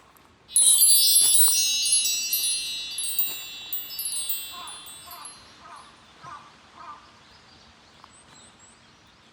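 A cluster of bright, high wind-chime tones starting suddenly about half a second in, ringing together and fading away over about four seconds.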